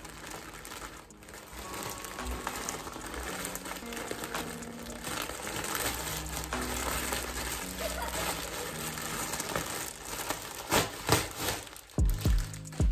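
A plastic poly mailer crinkling and tearing as it is ripped open by hand. Then a clear plastic bag rustles as it is pulled out, with a few louder rustles and bumps near the end. Background music plays throughout.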